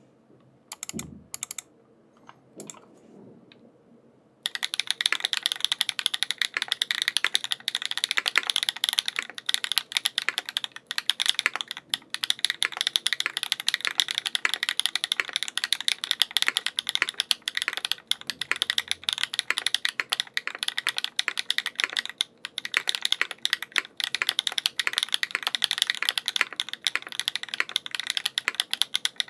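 Mechanical keyboard with Feker White Marble linear switches, hand-lubed with Krytox 205g0 and fitted with POM switch films, in a Skog Reboot case with an aluminium plate, GMK keycaps and no foam. A few scattered keystrokes come first, then about four seconds in it breaks into fast, continuous typing.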